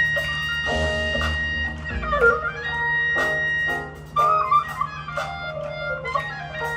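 Marching band playing its field show music: sustained chords with clarinets and other woodwinds to the fore, with a brief drop in loudness about four seconds in.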